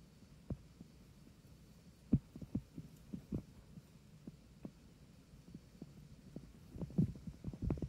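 Soft, irregular low thuds and bumps from cats moving about close to the microphone, coming more often near the end.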